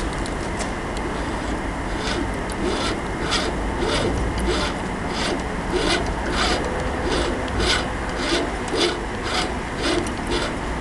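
Knurled dial of a Kaba Mas X-09 electronic safe lock being spun by hand, a rasping stroke repeated every half second or so from about two seconds in, as the spinning dial powers the lock's built-in generator.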